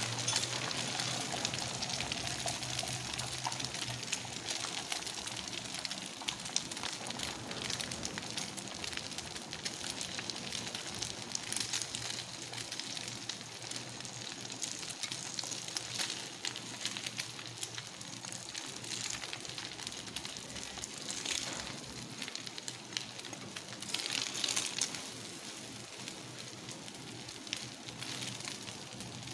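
An egg frying in oil in a pan, a steady crackling sizzle that flares louder briefly near the end.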